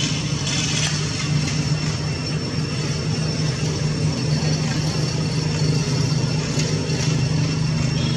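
A steady low drone, like a motor running, with a thin steady high whine above it.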